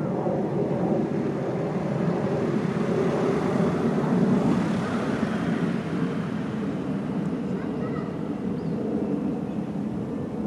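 Steady low rumble of distant engine noise, swelling slightly about four to five seconds in.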